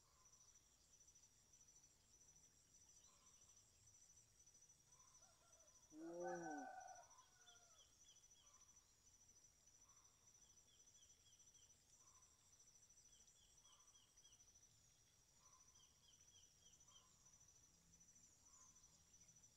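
Quiet rice-field ambience with a steady, high insect trill, crickets, and a chicken calling once, about six seconds in, the loudest sound.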